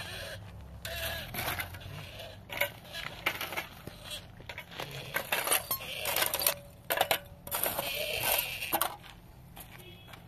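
A steel trowel scraping and clinking against broken cinder-block pieces and gravel: a run of sharp scrapes and metallic knocks, busiest in the second half.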